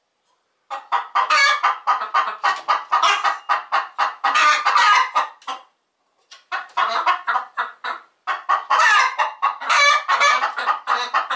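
Domestic hens cackling loudly in rapid runs of calls, starting about a second in, with a short pause around the middle.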